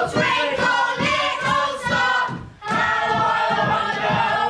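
A group of voices singing together as a chorus, a stage song in a live theatre performance, dropping out briefly about two and a half seconds in before carrying on.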